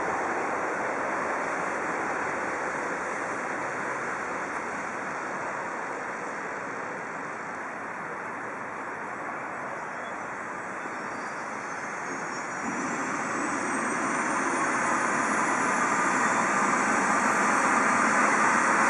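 Steady rushing noise, then about ten seconds in a Eurocopter EC135 twin-turbine helicopter's engine starts up: a thin turbine whine climbs steadily in pitch while the engine noise grows louder toward the end.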